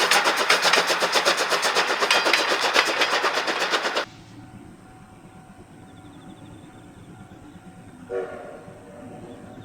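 Steam train passing at speed close by, a loud, fast and even clatter of wheels on rail. It cuts off abruptly about four seconds in to a quiet background, with one short pitched tone a little after eight seconds.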